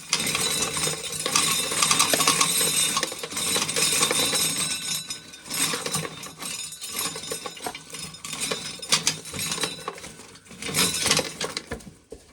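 Hand-cranked corn sheller stripping kernels off an ear: a dense, uneven clatter of dry kernels rattling through the sheller and falling into a pail, fading out near the end.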